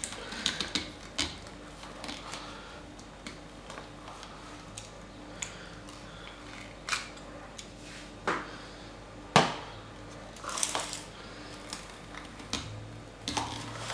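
Plastic ice cream scoop scraping through firm homemade ice cream in plastic tubs, with scattered clicks and taps of the scoop against the tub and a glass bowl; one sharp knock about nine and a half seconds in.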